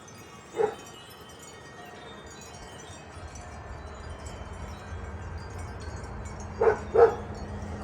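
Outdoor wind chimes ringing in a gusty wind, with wind rumbling on the microphone and building from about three seconds in. A dog barks once about half a second in and twice in quick succession near the end, the barks being the loudest sounds.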